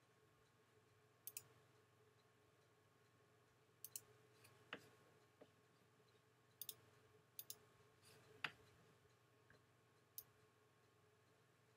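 Computer mouse clicks, several quick pairs of sharp clicks, with three duller knocks in between. A faint steady hum lies underneath.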